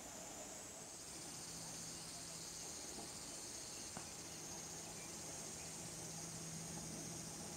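Faint insect chorus, a steady high-pitched buzz, with a faint low hum underneath and a single soft click about four seconds in.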